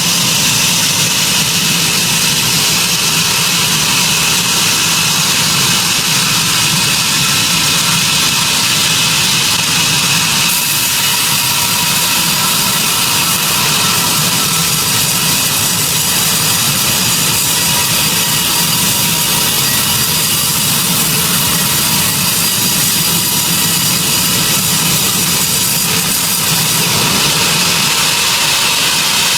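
Sawmill machinery running steadily, a loud even hiss over a low hum with no breaks or changes.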